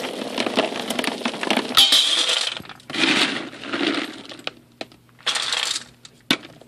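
Dry dog kibble pouring from a foil-lined bag into a plastic bin, a dense rattling of many small pieces. Then several short bursts of rattling as kibble is scooped and tipped into a stainless steel bowl, with a sharp click near the end.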